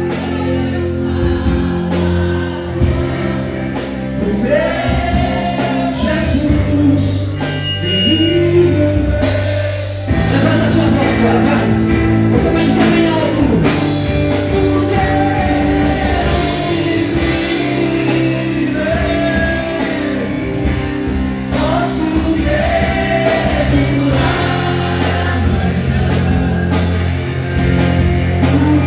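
Live gospel worship music: a singing voice over a band with guitar and a steady drum beat, the music getting louder and fuller about ten seconds in.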